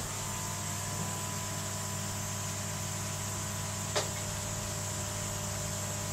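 Steady electric hum of pond air pumps running, with a low mains-pitched drone and a light hiss, and a single sharp click about four seconds in.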